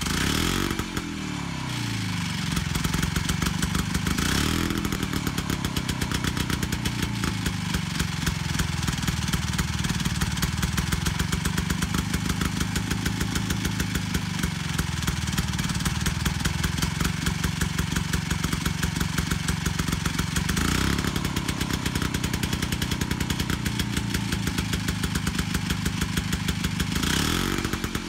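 Harley-Davidson golf cart engine running through its header exhaust, now fitted with a header gasket. It starts at the opening and settles from a rev down to a steady, evenly pulsing idle, then is revved briefly three times, about four, twenty and twenty-seven seconds in. The exhaust note is peppy.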